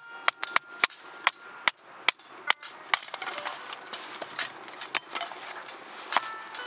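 Kindling in a freshly lit campfire crackling, with sharp, irregular snaps and pops over a steady hiss.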